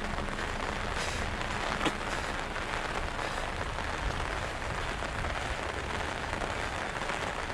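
Steady rain falling, an even hiss, with a single light tap about two seconds in.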